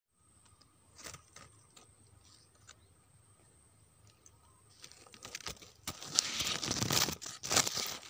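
Leaves and thin branches rustling and crackling as someone handles or pushes through dense vine foliage: a few scattered snaps at first, then close, louder rustling from about five seconds in.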